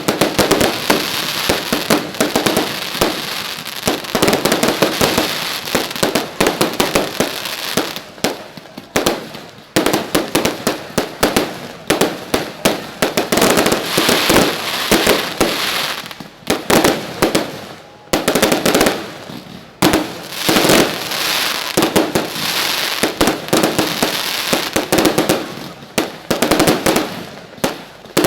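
Fireworks exploding continuously: rapid bangs and crackling bursts going off in dense volleys, with brief lulls between them.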